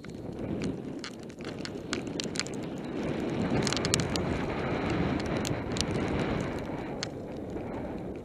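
Mountain bike descending a rough gravel trail at speed: tyres crunching over loose stones, with the bike rattling and clicking over bumps and wind rushing on the microphone. It gets louder from about three to six seconds in.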